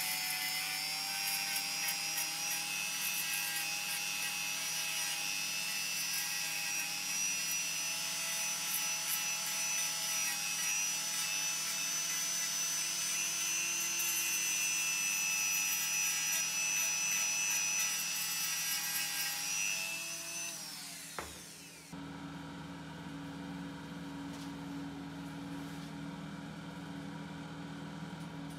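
Small high-speed power tool sanding a wooden saw handle, a steady whine with rubbing of wood against the abrasive. About twenty seconds in the motor is switched off and winds down with falling pitch. A steady low hum follows.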